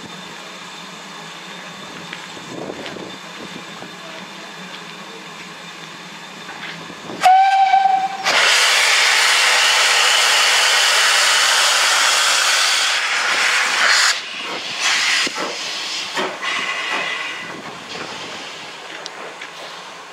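BR Standard Class 2 2-6-0 steam locomotive No. 78019 gives one short whistle about seven seconds in, then a loud hiss of steam from its open cylinder drain cocks runs for about five seconds as it starts off. Uneven puffs of exhaust and steam follow as it pulls away.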